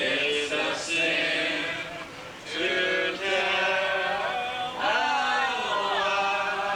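Male voices singing a slow tune in long held notes, without clear words.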